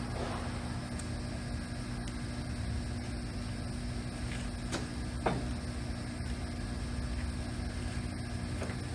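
LeBlond hollow-spindle gap-bed lathe running under power, its spindle and headstock gearing giving a steady mechanical hum with a constant tone. A few light clicks are heard in the middle.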